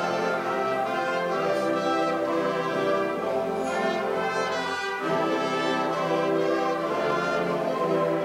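School symphonic band of woodwinds and brass playing a fanfare live, in held full chords that change every second or two.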